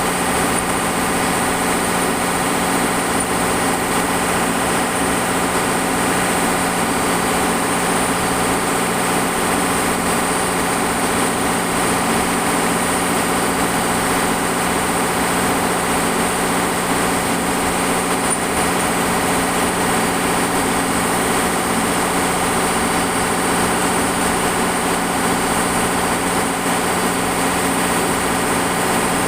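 Shipboard machinery on a longline fishing vessel running steadily: a loud, unchanging drone with a constant low hum and a high-pitched whine.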